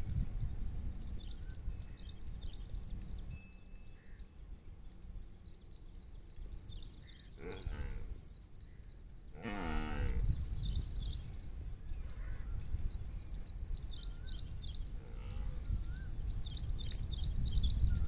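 Small birds chirping in repeated bursts of quick, high notes. Two long, quavering bleats from a sheep or goat come about seven and a half and nine and a half seconds in. A low wind rumble on the microphone sits beneath.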